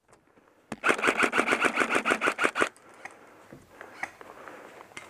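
Airsoft rifle firing a full-auto burst of about two seconds, roughly ten shots a second, starting just under a second in. A few faint clicks follow.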